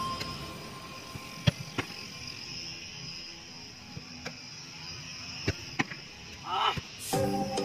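A handful of sharp thuds of a football being kicked and caught in goalkeeper gloves, the loudest about a second and a half in, over a steady high hiss, with a brief wavering call shortly before the end. Background music with mallet-like notes comes back in near the end.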